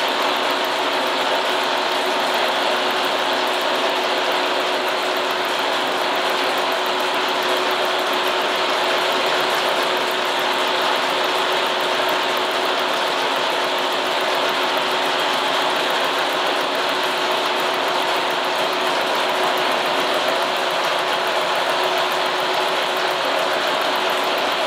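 Induma horizontal milling machine running at its slowest spindle speed under power feed, a single-tooth hand-ground high-speed-steel cutter cutting a tooth into solid brass. A steady, even machine noise with a constant hum.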